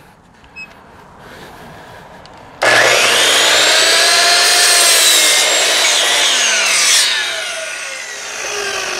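Electric sliding compound miter saw starting suddenly about two and a half seconds in and cutting through a wooden board, its whine bending as the blade goes through the wood. After about four seconds the trigger is released and the blade spins down with a falling tone.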